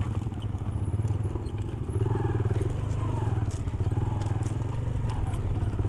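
Motorcycle engine running steadily as the bike rides over loose stones, with light clattering from the rocky track.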